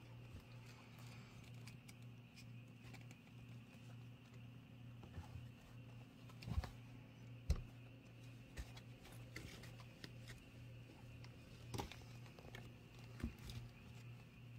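Faint scuffling and rustling of three-week-old kittens play-fighting on a quilted fabric mat, with scattered soft knocks, the loudest about six and a half and seven and a half seconds in, over a steady low hum.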